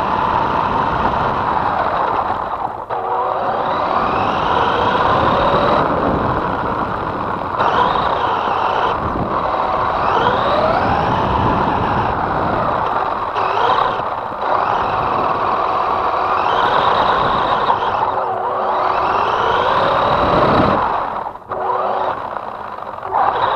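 Electric motor and gearbox of a Feiyue FY03 Eagle-3 1/12 4WD RC truck whining as it drives, heard up close from a camera mounted on the truck. The whine rises in pitch again and again as the truck speeds up, over a steady rushing drivetrain and tyre noise, and briefly dips as the throttle is let off.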